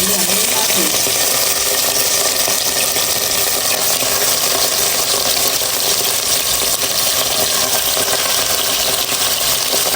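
Goat meat frying in a pan, sizzling steadily in its own fat.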